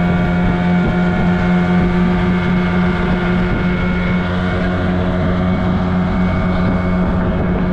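Outboard motor of a small fishing boat running steadily at cruising speed, a constant drone with a strong low tone.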